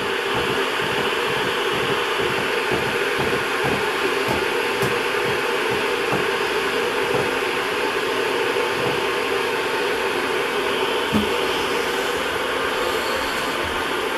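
Russell Hobbs electric kettle heating water toward the boil: a steady rushing hiss with many irregular low pops and knocks as bubbles form and collapse on the hot element.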